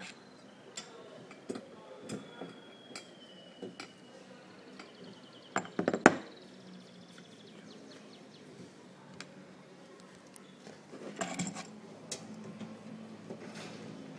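Metal parts clinking and knocking against each other and a wooden tabletop as they are handled, in scattered single clicks with a loud cluster of knocks about six seconds in and another about eleven seconds in.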